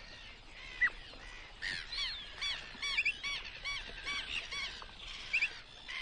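Birds calling: many short, repeated calls overlapping one another, with a quick double note about three seconds in and again near the end.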